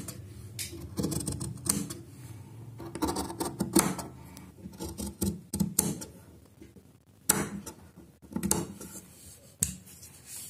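Steel tailor's shears snipping open a line of basting stitches in fabric: an irregular series of short clicks and snips.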